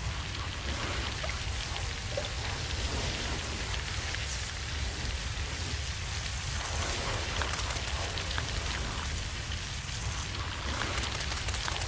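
Ambient sound-design bed for a molecular animation: a steady, crackling, rain-like hiss over a constant low rumble.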